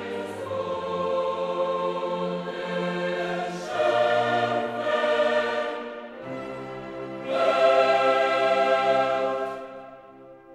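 Slow choral music with orchestral backing: held chords that swell louder twice, about four and seven seconds in, then fade away near the end.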